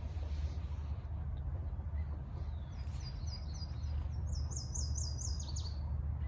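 Steady low wind noise on the microphone, with a songbird singing: a run of quick high notes from about three seconds in, then a louder series of repeated down-slurred notes ending lower near the end.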